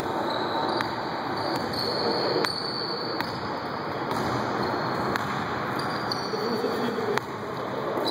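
Basketball practice on an indoor court: scattered, irregular thuds of a ball bouncing and players' feet on the floor over a steady hall din, with a faint high squeak-like tone in the first few seconds.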